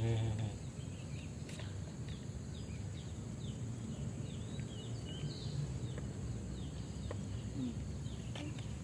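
Small birds chirping repeatedly in short, high, falling notes over a steady low rumble of outdoor background noise.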